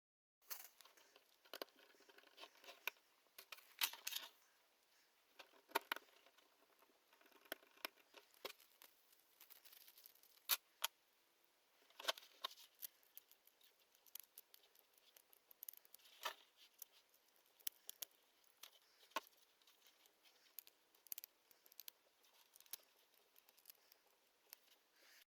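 Faint, irregular clicks and taps of small screws and plastic parts being handled as a 3D-printed fan bracket and ducts are screwed together.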